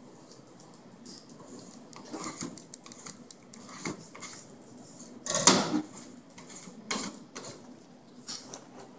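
Kitchen handling noise on a stainless steel work bench: scattered light clicks and knocks, with one louder, brief clatter about five and a half seconds in.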